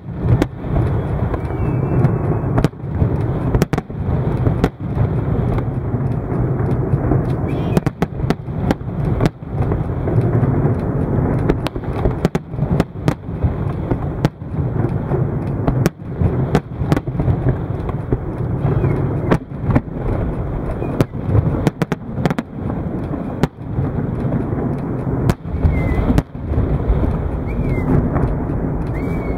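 Aerial firework shells bursting in a display: dozens of sharp bangs at irregular intervals, often in quick clusters, over a continuous low rumble.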